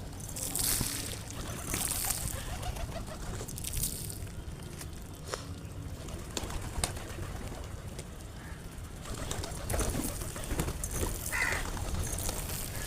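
Pigeons cooing, with a few low calls over a steady low rumble.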